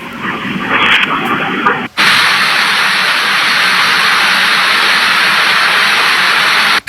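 Loud, steady rush of fast-flowing floodwater, with an abrupt cut about two seconds in from a duller, more uneven stretch to an even, full roar.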